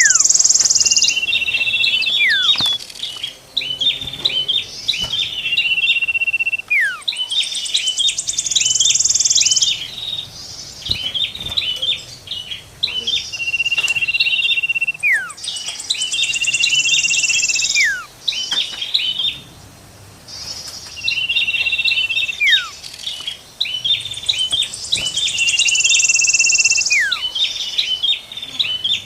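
Mixed bird-lure track of common iora, tailorbird and cikrak kutub warbler songs, repeating about every six seconds. Each round holds a high buzzy trill, long level whistles, quick runs of chirps and a steep falling whistle.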